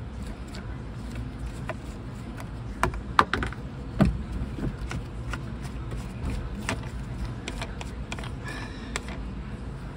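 Short plastic clicks and knocks as the push-pull knobs are pulled off a truck's Bendix MV-3 dash brake valve, a few scattered strokes between about three and seven seconds in, over a steady low hum.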